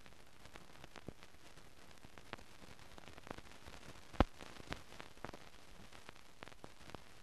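Steady hiss with scattered faint clicks and crackles, one sharper click about four seconds in: the noise of a soundtrack with no recorded sound on it.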